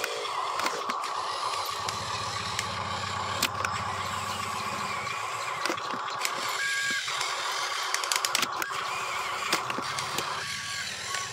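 Huina RC dump truck driving over dirt and dry twigs: a steady electric-motor and gearbox whine with scattered clicks and crackles from the tyres. Short electronic beeps sound about six and a half seconds in and again near the end, typical of the toy's reversing beeper.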